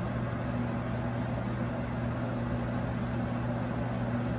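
Kitchen range hood blower running steadily, a constant low hum over an airy rush. The duct joint at the top of the chimney cover is unsealed, so exhaust air is blowing back out there.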